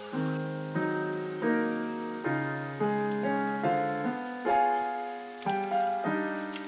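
Background piano music: a gentle melody of single struck notes, each ringing out and fading, a new note about every three-quarters of a second.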